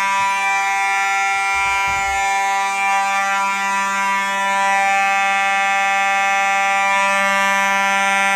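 Fire alarm horn on a small fire alarm system sounding a continuous, steady buzzing tone during a system test.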